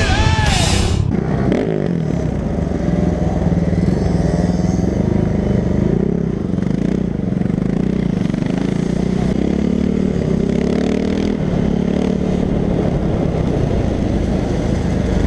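Dirt bike engine heard from the rider's helmet while riding, its note rising and falling as the throttle opens and closes.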